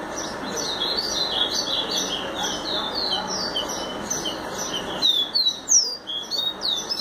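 A small songbird singing inside a blender jar: a rapid, continuous series of short chirping notes that sweep up and down, louder and more spaced out in the second half.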